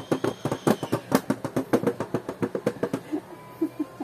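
Small hand patting and drumming rapidly on the metal lid of a cookie tin, several irregular taps a second, stopping about three seconds in.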